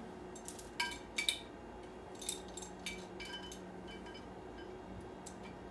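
Steel chain links clinking against each other and a kettlebell handle as the chain is worked through the handle. A run of sharp, ringing clinks lasts about three seconds, the loudest a little past two seconds in.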